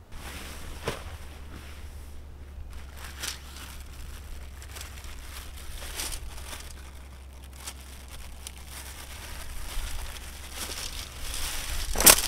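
Synthetic tent fabric and a plastic pole bag being handled: irregular rustling and crinkling with a few sharper crackles, the loudest about 12 seconds in. A low steady rumble runs underneath.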